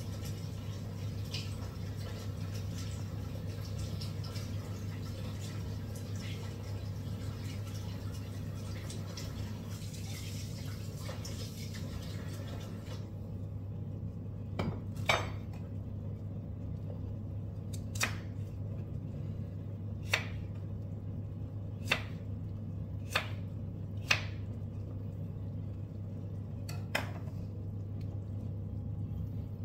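Kitchen work sounds: a steady low hum with a hiss that stops abruptly about halfway through, then about seven sharp knocks of utensils against cookware, spaced a second or two apart.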